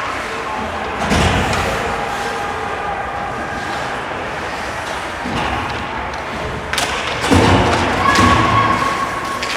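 Ice hockey game sounds: heavy thuds against the rink boards about a second in and again around seven seconds, over a murmur of voices in the arena.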